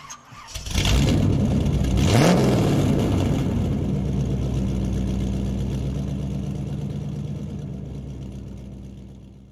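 A car engine comes in loudly about a second in and revs once with a quick rise in pitch. It then settles into a steady idle that slowly fades out.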